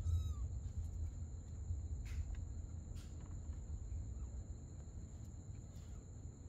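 A kitten gives one short mew that falls in pitch right at the start. Two soft knocks follow about two and three seconds in, over a steady high-pitched whine and a low rumble.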